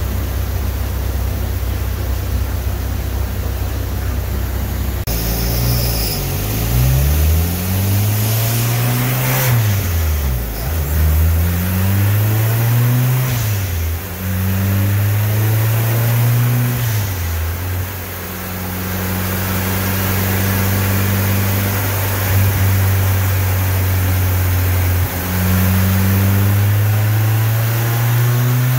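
Turbocharged Honda B-series four-cylinder in a Civic on chassis-dyno rollers, revved up and back down several times, then held at steady revs that climb slowly near the end. A steady low drone fills the first few seconds.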